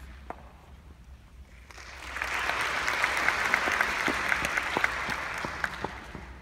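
Audience applause in a concert hall, starting about two seconds in, holding steady through the middle and fading away near the end.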